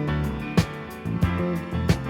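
Muzak-style easy-listening background music with a steady beat, guitar faintly present.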